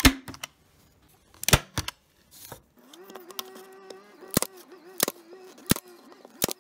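A staple gun firing staples into pallet-wood pieces to join them into a star: about six sharp snaps, one near the start, one about a second and a half in, then four in quick succession near the end. A wavering hum runs under the second half.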